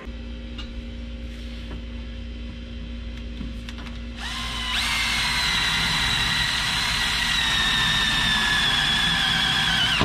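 Cordless drill boring into the sheet-metal floor of a pickup truck bed. About four seconds in it goes to a loud high whine under load, the pitch sagging slightly as the bit cuts, and it winds down at the end.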